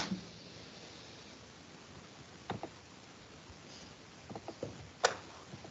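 Scattered computer mouse clicks, a few short faint ones and the loudest about a second before the end, over quiet background hiss.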